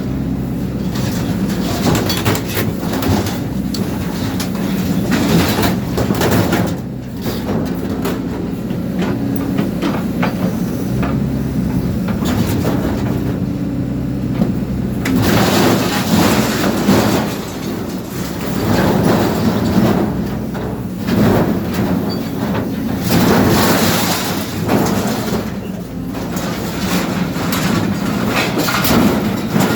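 Heavy machine running steadily while chopping up material, with repeated surges of crunching and tearing noise over the engine, some lasting a second or two.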